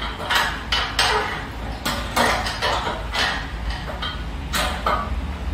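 Irregular metal clanks and clinks, about ten in all, some ringing briefly, from a metal desk frame and its bolts being handled and fitted together on a tiled floor during assembly.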